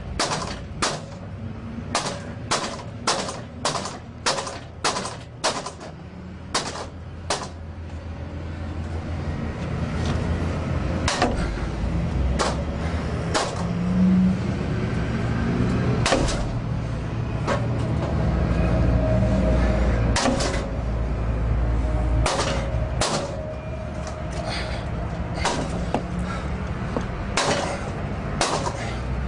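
Steel pry bar striking the lock stile of an Xpanda steel expanding security gate, sharp metallic blows about twice a second for the first seven seconds. From about eight seconds, low grinding and straining of metal as the bar is levered against the gate, with occasional sharp knocks.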